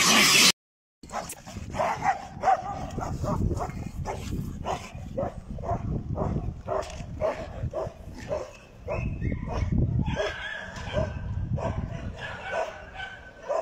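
A dog barking over and over, quick short barks about three a second, with a brief lull about eight seconds in.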